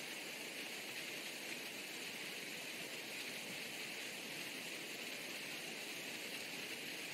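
Steady, even hiss of outdoor background noise, with no distinct sounds standing out.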